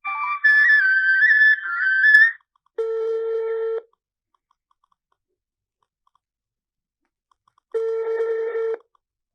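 A short stepping electronic phone jingle, then a mobile phone's outgoing-call ringing tone: a one-second buzzy tone heard twice, about five seconds apart, with silence between.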